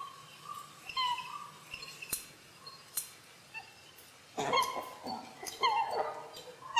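Rabbit squeaks: short, high-pitched cries, sparse and faint at first, then a louder run of squeaks with falling pitch from about four and a half seconds in.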